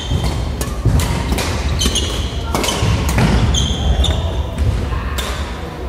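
Badminton rackets striking shuttlecocks on several courts, sharp hits a few times a second, echoing in a large sports hall. Short high squeaks of court shoes on the floor come now and then, over a steady low rumble.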